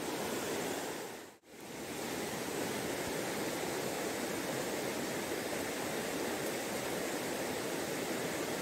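Shallow rocky stream running, a steady even rush of water. The sound cuts out very briefly about a second and a half in.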